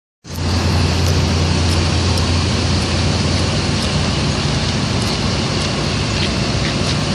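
A vehicle engine running with road noise: a steady low hum under an even rush of noise, starting abruptly just after the beginning.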